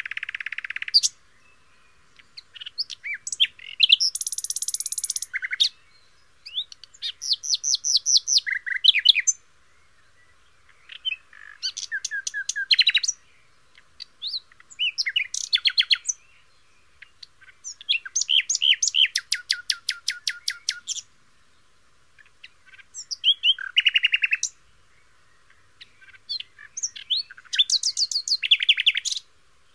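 Songbirds singing: about eight phrases of rapid repeated and descending chirping notes, each a few seconds long, with short quiet gaps between them.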